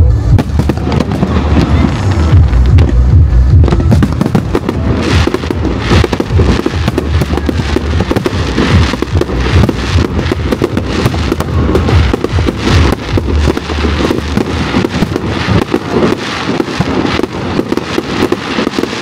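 Fireworks going off in rapid succession. From about four seconds in, dense crackling and popping bursts pile up, over loud music with a heavy bass.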